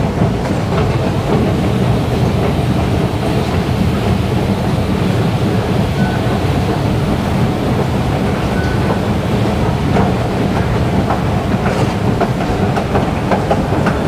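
Escalator running: a steady low rumble and rattle from its moving steps and drive, with a few light clicks.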